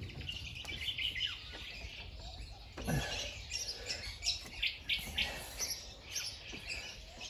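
Birds chirping and calling, with a light knock about three seconds in.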